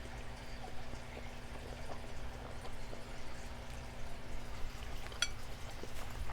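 Close-miked chewing and wet mouth sounds of someone eating, with small scattered clicks over a steady low hum. About five seconds in comes one short ringing clink.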